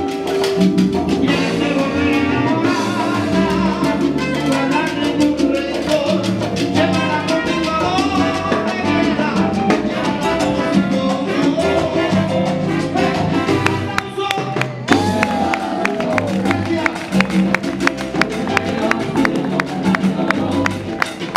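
Live Cuban salsa band playing: congas, timbales, bass and piano, with voices singing over the band. About two-thirds through the band drops back for a moment, then a sharp, regular percussion beat comes to the fore.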